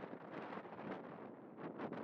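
Wind buffeting the microphone: a steady hiss that swells and dips.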